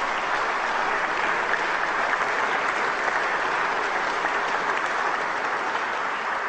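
Audience applauding: a steady, sustained round of clapping that holds at full strength.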